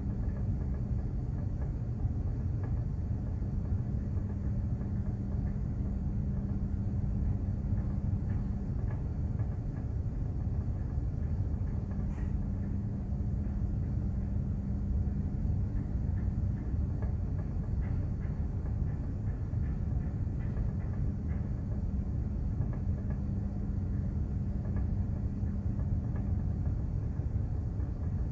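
Steady low rumble of a container ship under way, its engine and hull vibration carrying a constant hum.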